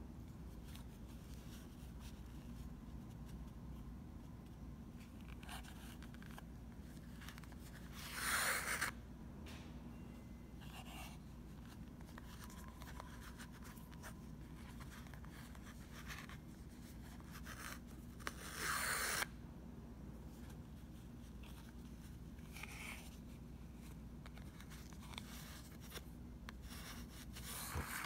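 Yarn being wrapped around a CD: two short rasping scrapes, about 8 and 18 seconds in, as the yarn is drawn taut across the disc, with faint rubbing and handling sounds in between over a low steady hum.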